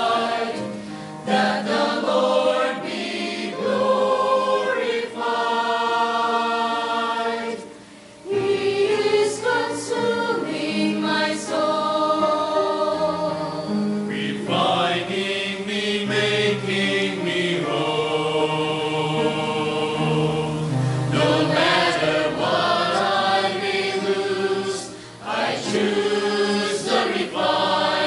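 Mixed church choir singing a slow anthem with piano accompaniment, in long sustained phrases, with short breaks between phrases about eight seconds in and again near the end.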